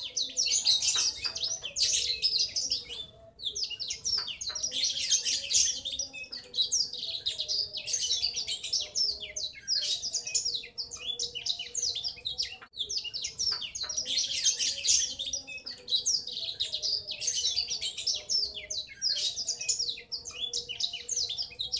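Young male black-throated canary (blackthroat) twittering its juvenile 'ngriwik' song, a fast rolling warble in long phrases of two to three seconds with brief pauses between them. The long roll is what marks the youngster as a male.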